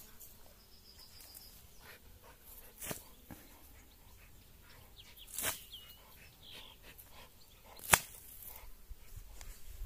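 Water tossed from a bucket at an American bulldog: a few short, sharp splashes and snaps, the loudest about eight seconds in.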